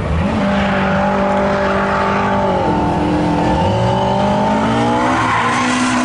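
Mk2 Ford Escort drift car's engine revving hard while it slides sideways, its pitch dipping about halfway through and then climbing again, with tyres squealing.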